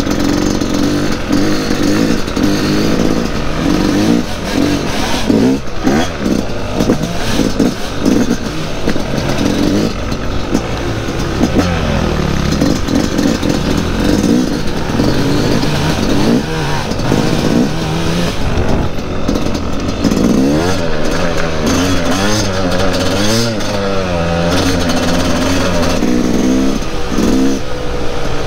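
Yamaha dirt bike engine running under way, its pitch rising and falling over and over as the throttle is opened and closed.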